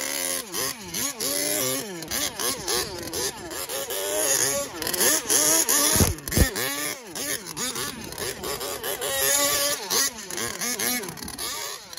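Petrol two-stroke engine of an HPI Savage XL Octane RC monster truck revving up and down again and again as it is driven. There is a low thump about six seconds in.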